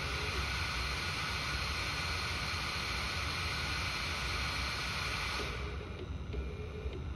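5015 blower fan on a 3D printer's part-cooling shroud running at high speed with a steady rushing hiss and a faint whine, then dropping sharply to a quieter low speed about five and a half seconds in, as the fan is stepped down from 90% to 20%.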